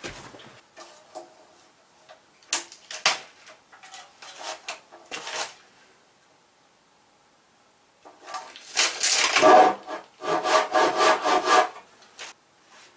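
Handsaw cutting a wooden batten in a run of quick rasping strokes, the blade ringing a little. Before it come a few knocks of the wood being handled.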